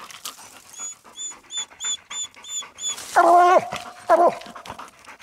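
Coonhounds barking treed at a den tree: two loud barks about three and four seconds in. Before them, a quick series of short high chirps repeats about three times a second.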